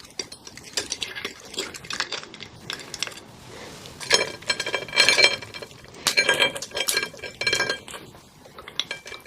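Metal cutlery clinking and scraping against dishes, with a cluster of ringing clinks in the middle stretch.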